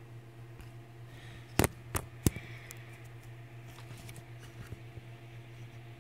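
Three sharp clicks in quick succession about a second and a half in, followed by a few fainter ticks, over a steady low hum.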